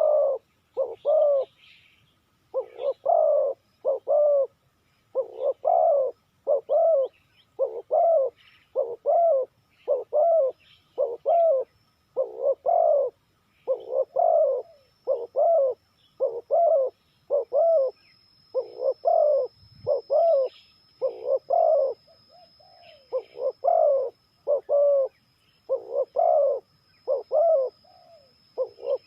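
Spotted dove cooing over and over: a dense run of low, hollow coo notes in quick short groups, one phrase following another without pause.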